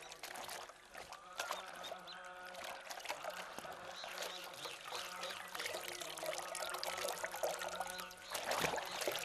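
Wet cotton cloth squelching as it is kneaded and wrung in a metal bucket of saffron dye, the dye sloshing and trickling back into the bucket in irregular splashes and drips.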